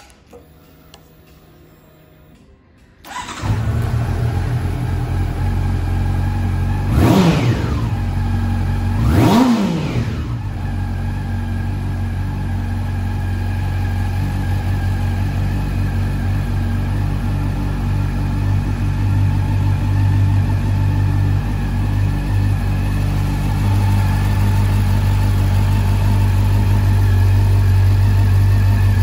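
Honda CB400 Super Four VTEC Revo's inline-four engine starting about three seconds in, revved twice with quick throttle blips, then idling steadily.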